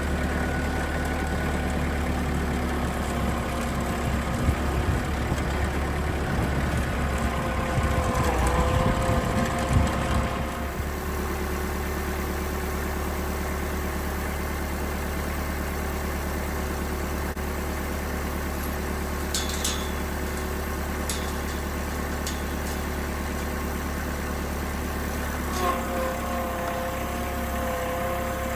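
An engine running steadily, working harder with its pitch wavering about eight to ten seconds in before settling back. A few short sharp clicks sound in the second half.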